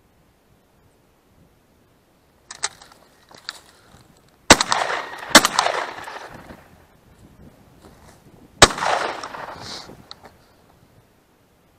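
Three shotgun shots: the first two about a second apart, the third about three seconds later, each trailing off in an echo. A few fainter sharp clicks come a couple of seconds before the first shot.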